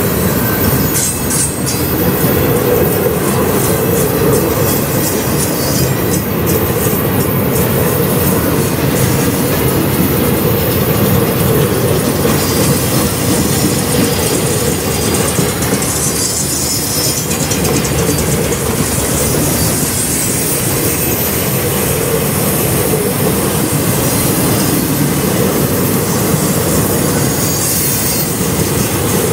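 Loaded railroad flatcars rolling past, steel wheels on rail with a steady clatter, and wheel flanges squealing at times on the curve.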